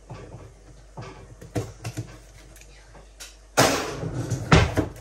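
Packaging being handled and opened: a few light knocks and clicks, then a loud rustle of wrapping about three and a half seconds in, with a heavy thump near the end.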